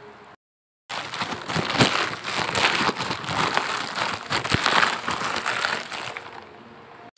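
Thin plastic packaging crinkling and rustling as it is handled and pulled off a spray bottle. It starts about a second in and trails off near the end.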